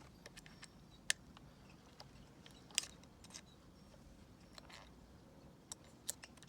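Scattered small clicks and taps, with a short scrape about two-thirds through: multimeter test leads being handled and fitted to a battery's terminals one-handed.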